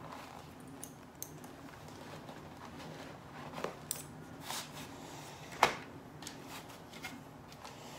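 Hands handling an Arai full-face motorcycle helmet that is being worn: fingers working the chin strap, then rubbing and pressing on the shell, giving soft rustles and light clicks, with one sharper click about five and a half seconds in.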